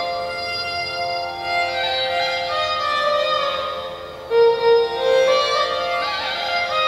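Carnatic-style instrumental music for a kavadi chindu, a Tamil devotional folk song: a melody instrument plays slow phrases that slide between notes over a steady drone.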